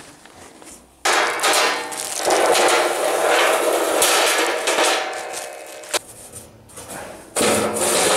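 Steel ball bearings dropped onto a steel turntable plate, rattling and rolling across the metal with a ringing clatter. It starts suddenly about a second in and fades out, then a second burst starts near the end.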